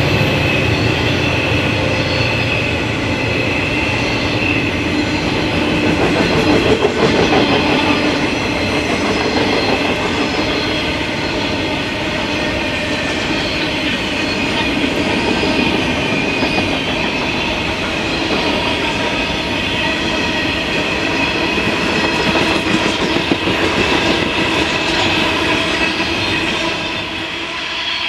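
A long rake of hopper wagons rolling past on curved track: the steady rumble of steel wheels on rail, with clicking over the rail joints and a high wheel squeal running through it. It eases off near the end as the last wagons clear.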